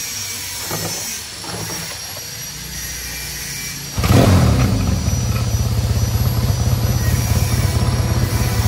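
Yamaha XS650's parallel-twin engine starting up suddenly about four seconds in, briefly louder as it catches, then running steadily with a fast, even beat. A few light knocks come before it.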